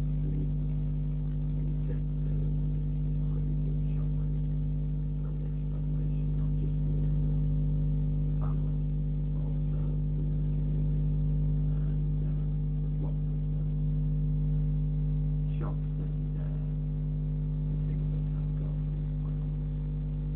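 Steady low electrical hum, unchanging throughout, with a few faint ticks.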